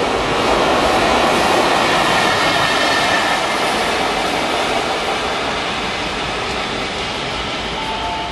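EF65 electric locomotive passing through, a steady rush of wheel and rail noise that is loudest about a second in and slowly fades as it moves away.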